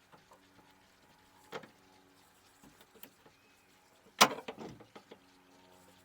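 Pliers prying a small plastic piece out of a pickup tailgate: a few light clicks, then a sharp plastic clack with a brief rattle about four seconds in.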